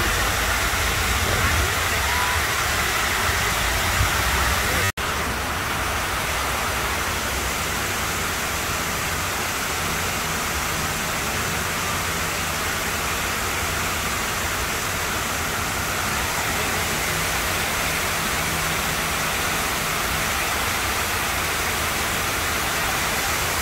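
Steady rush of water pouring down the walls of a 64-foot-high fountain. About five seconds in, the sound cuts out for an instant and then resumes unchanged.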